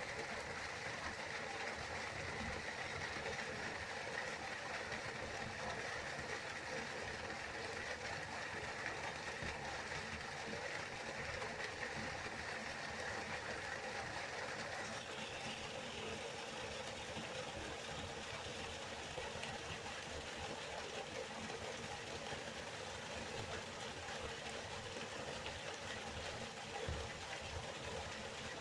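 River water flowing as a steady, even rush, whose tone shifts slightly about halfway through.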